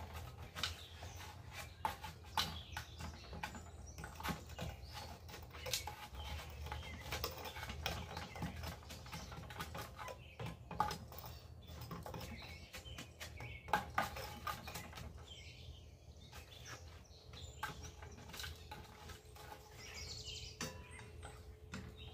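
Small Harbor Freight 1¼ cubic-foot electric cement mixer running with a steady low hum, with irregular clatters and scrapes from the drum as the concrete mix tumbles. Birds chirp now and then.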